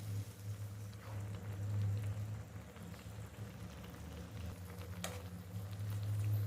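Chicken curry bubbling in a pot on the stove over a steady low hum, with a single sharp click about five seconds in.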